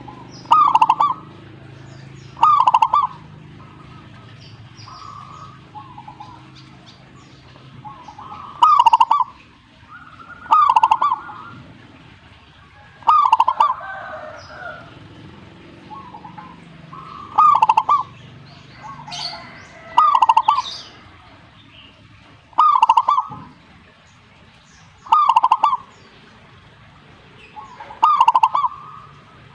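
Zebra dove (perkutut) cooing: about ten short, loud cooing phrases, repeated every two to three seconds.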